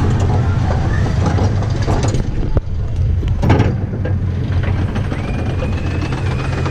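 Onboard a Flying Turns wooden bobsled roller coaster car as it rolls out of the station: a steady low rumble with scattered clatter, and a sharper knock about three and a half seconds in.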